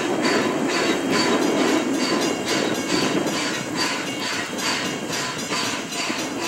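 Canadian National 2-6-0 steam locomotive #89 under way, running tender-first, its exhaust chuffing in a steady rhythm of about two beats a second.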